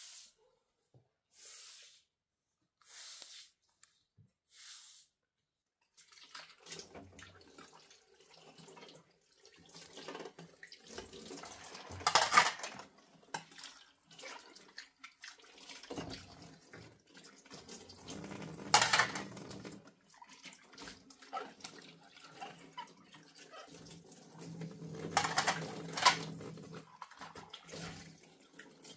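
A kitchen tap runs into a sink while dishes and pots are washed by hand, with water splashing, clinking and several louder clatters. It is preceded by four short swishes about a second and a half apart.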